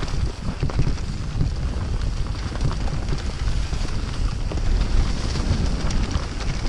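Wind buffeting the camera microphone during a fast mountain-bike ride on a dirt singletrack, a steady low rumble with tyre noise and scattered clicks and rattles from the bike over the rough ground.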